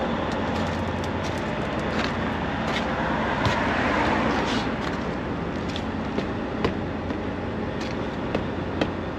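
Semi truck's diesel engine idling with a steady low hum, with scattered light clicks and a rush of noise that swells and fades about four seconds in.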